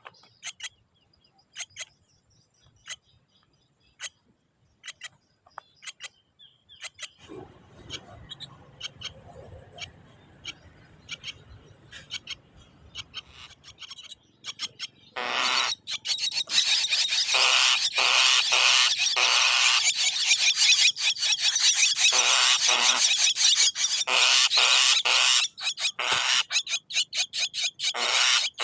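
Javan mynas calling: scattered short chirps and clicks at first, then from about halfway a loud, dense run of harsh, rapidly pulsed chattering.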